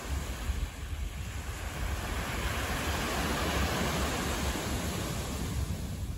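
Outdoor rushing noise with a low rumble from wind on the microphone. A vehicle's tyre noise swells about two seconds in and fades toward the end as it passes.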